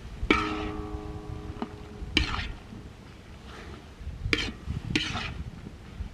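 A metal utensil stirring food in a metal cooking pot, striking it four times with sharp clanks; the first clank rings on for over a second.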